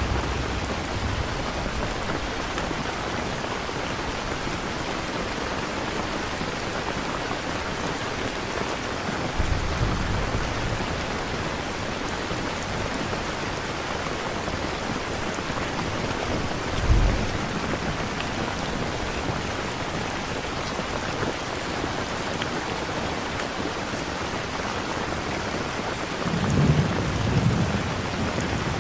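Steady rain falling, with low rolls of distant thunder a few times, the strongest near the end.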